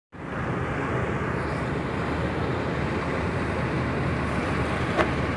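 Heavy diesel engine running steadily at a constant pace, with a single sharp click near the end.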